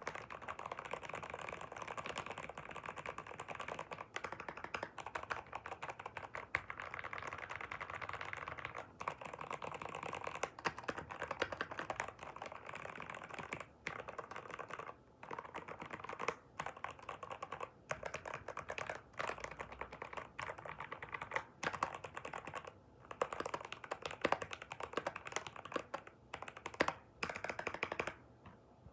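Rapid typing on a computer keyboard: a dense, continuous stream of key clicks, broken by a few brief pauses.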